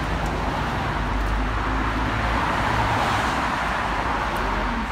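Street traffic noise: a steady rumble, with a vehicle passing close that swells up and fades again in the middle.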